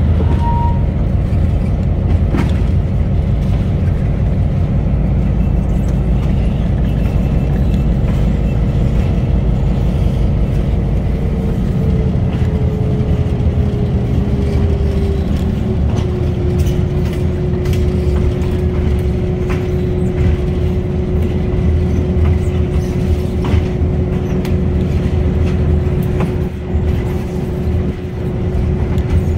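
EMD RS1325 diesel locomotive running while it rolls slowly along the track, heard from on board: a steady low engine drone with a whine that drops in pitch about halfway through and then holds. A few sharp clicks from the wheels are scattered through it.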